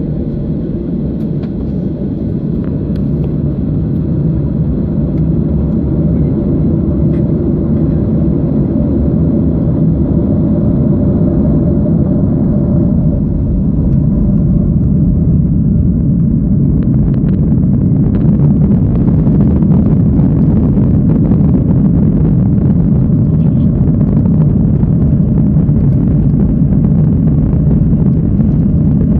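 Boeing 737-600 cabin noise from a seat over the wing: a steady low rumble of the CFM56 jet engines at idle. About halfway through the rumble grows a little louder and rougher as thrust comes up and the jet starts rolling toward the runway.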